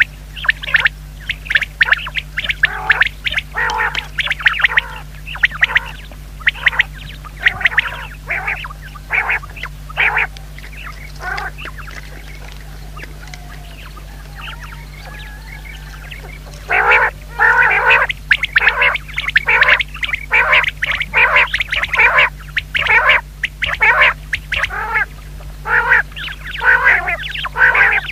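Common quail calling: a rapid series of short calls, several a second, that stop for about four seconds near the middle and then resume thickly.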